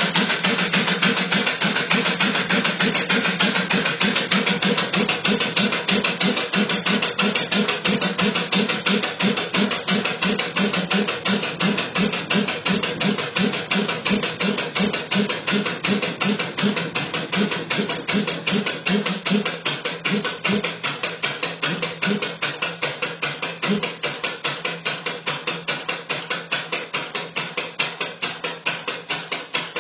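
Lawnmower engine converted to a steam engine, running on compressed air, knocking with each stroke in a quick, even beat that slowly gets slower and quieter.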